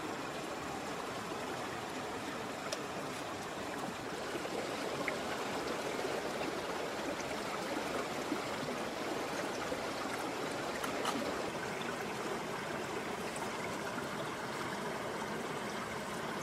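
Steady rush of flowing stream water, with a few faint ticks.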